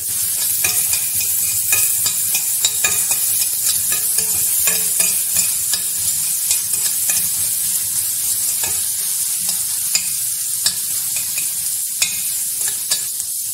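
Chopped onion and vegetables sizzling in hot oil in a stainless steel kadai while being stirred, the spoon scraping and clicking repeatedly against the metal pan over a steady frying hiss.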